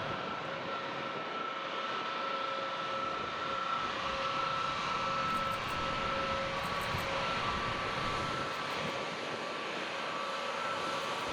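Jet airliner engines running: a steady rush of noise with a high whine held near one pitch, which steps slightly lower about halfway through.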